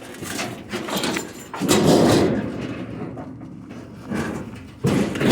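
A sheet-metal household appliance being shifted and scraped around on a truck bed, with loud rough scraping and bumping about two seconds in and again near the end.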